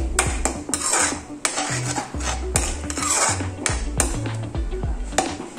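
Perforated metal spoon scraping and clinking against a metal kadhai, a couple of strokes a second, as thick masala paste is stirred while it fries (the bhunao stage).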